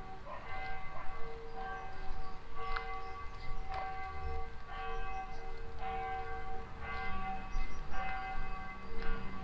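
Church tower bells ringing: several bells of different pitch struck in turn, roughly one strike a second, each note ringing on into the next.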